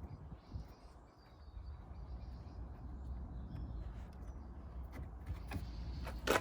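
Faint birdsong over a low outdoor rumble, with a few small clicks of parts being handled and one sharp click near the end.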